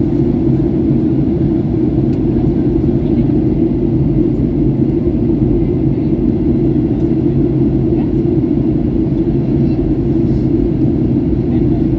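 Steady cabin drone of a Boeing 737-800 in flight, from its CFM56-7B turbofan engines and the airflow over the fuselage. It is an even low hum with no change in pitch or level.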